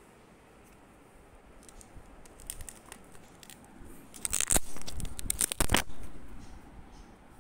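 Pages of a two-ring binder being handled and turned. A few light clicks come first, then the pages crinkle and rustle loudly for about two seconds just past the middle.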